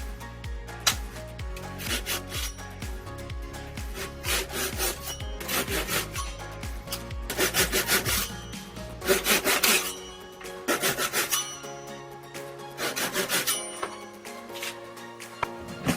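Hand saw cutting wood in bursts of quick back-and-forth strokes with short pauses between. It is cutting a row of thin, closely spaced kerfs that will be snapped out one by one to clear a notch.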